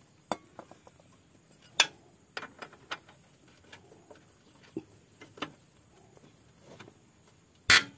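Scattered sharp clicks and clinks of metal tools against the water pump's metal parts during disassembly, with a louder knock near the end.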